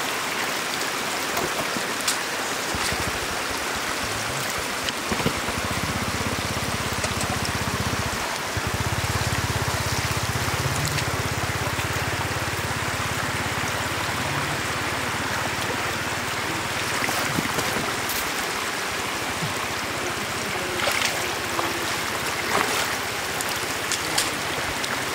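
Steady rush of running shallow floodwater, with a few splashes near the end as a wicker basket is scooped through the water. A low hum sits underneath for much of the first two thirds.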